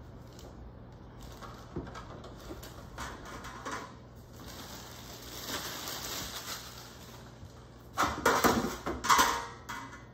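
Hoagie rolls being handled, pulled from a plastic bag and torn in half by hand: crackling of bread crust and rustling of plastic, with the loudest crackling near the end. A metal baking pan knocks against the counter along the way.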